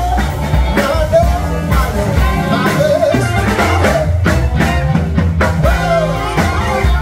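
Live band playing: trumpet and tenor saxophone horn lines over bass guitar and drums.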